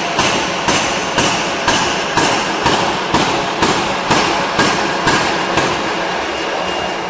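Rotary forging press working a red-hot steel ring: loud, even knocks about twice a second over a steady mechanical din and a thin high whine. The knocks stop about six seconds in.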